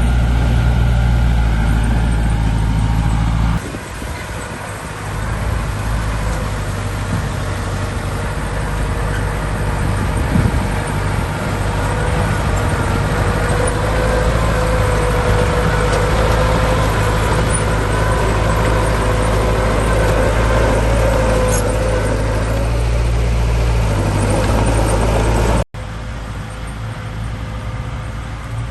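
Heavy diesel machinery engines running steadily under load, a low drone with a faint whine above it. The sound changes abruptly about three and a half seconds in and breaks off sharply near the end.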